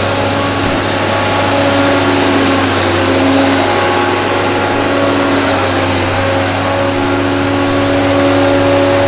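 An engine running steadily at a loud level, its pitch shifting up and down a little now and then, over a constant low hum and noise.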